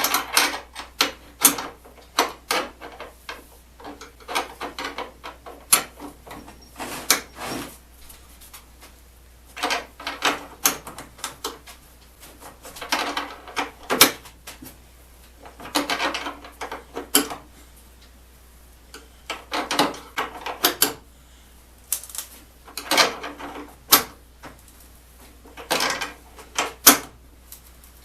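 A nut being run down a carriage bolt with a wrench to draw the bolt's square shank into a door bushing, heard as bursts of metallic clicking every two to three seconds.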